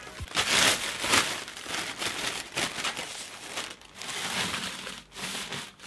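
Thin black plastic bag crinkling and rustling as it is unfolded and pulled open by hand. The loudest crackles come about half a second and a second in.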